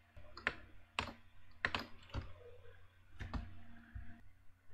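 Irregular clicks and taps of a computer keyboard and mouse, about eight in all, over a faint steady hum.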